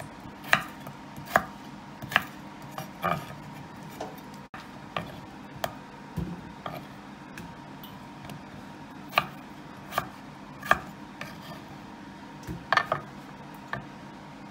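Chef's knife cutting a peeled potato on a wooden chopping board, the blade knocking on the board with each cut: about a dozen sharp, irregular strokes, mostly a second or less apart, over a faint steady hum.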